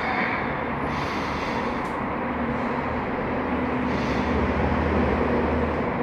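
Steady background noise, a low hum under an even hiss, with faint brief rustles.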